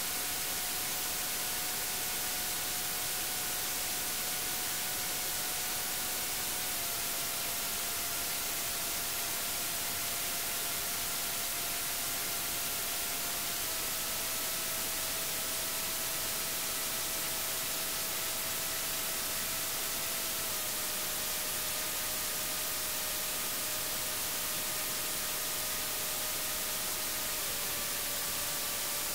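Electronic soundtrack of steady hiss, with a faint held tone beneath it that drops a small step in pitch about every seven seconds, four times over.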